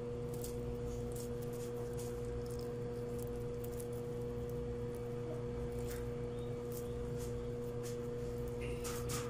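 Faint, soft, wet clicks of raw ground meat being pressed and rolled into small meatballs by hand, over a steady kitchen hum.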